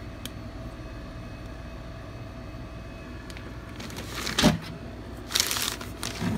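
Handling of an opened air fryer's sheet-metal housing on newspaper: a single knock about four and a half seconds in, then a short rustle, over a steady low hum.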